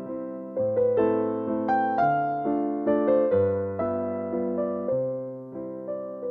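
Background piano music: a calm melody of single struck notes over slow bass notes, each note fading after it is played.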